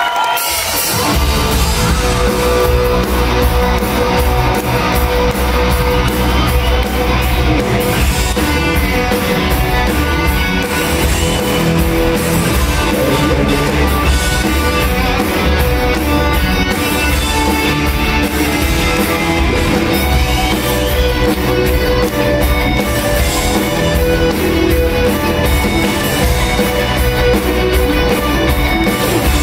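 Live rock band playing loud, with electric guitars, bass and drums, kicking in about a second in over the tail of crowd cheering.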